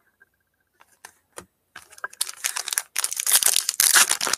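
A few light clicks, then, about two seconds in, a sports-card pack's foil wrapper is torn open and crinkles. The crinkling grows louder toward the end.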